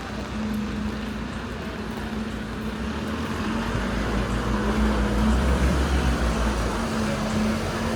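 City street traffic: a motor vehicle's engine hum with a low rumble, swelling about halfway through and easing a little near the end.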